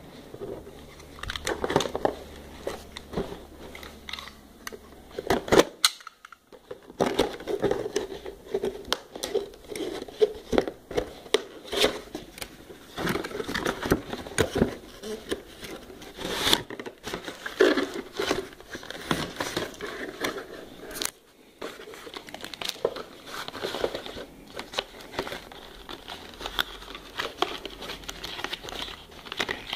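Cardboard and plastic packaging of a webcam box being handled and opened: irregular rustling, crinkling and scraping as the inner cardboard tray is slid out, with two brief pauses about six and twenty-one seconds in.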